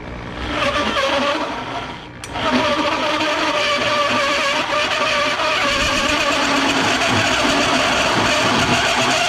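Power drill driving a hole saw into an aluminium sheet, its motor running with a steady whine over the cutting noise. It eases off briefly about two seconds in, then picks up again and keeps cutting steadily.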